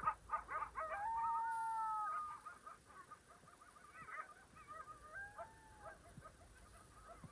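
Animal calling: a quick run of short calls, then a long drawn-out call about a second in, scattered short calls, and a second long call around five seconds in.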